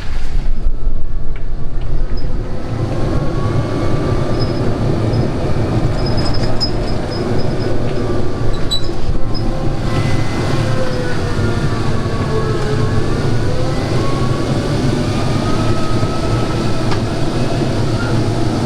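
Electric buggy driving, its motor whining over a steady low rumble. The whine's pitch falls and rises again near the middle, following the buggy's speed.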